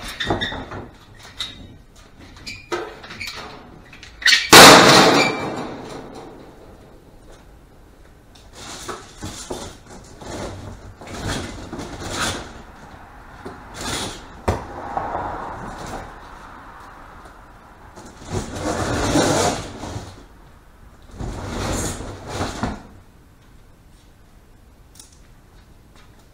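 Scrap metal and wire being handled and thrown down: one loud crash about four and a half seconds in, then several separate spells of scraping and clattering, each a second or two long.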